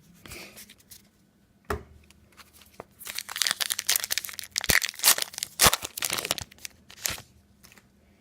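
A baseball card pack's wrapper being torn open and crinkled by hand. There is a single click about two seconds in, then a dense stretch of crackling and tearing from about three to seven seconds in.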